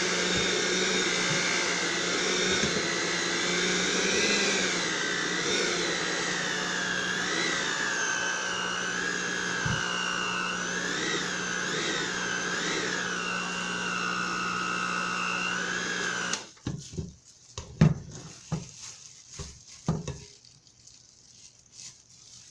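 Electric mixer running at medium-low speed, beating banana bread batter, its whine wavering up and down in pitch as the beaters work through it. It switches off about three-quarters of the way through, followed by a few knocks.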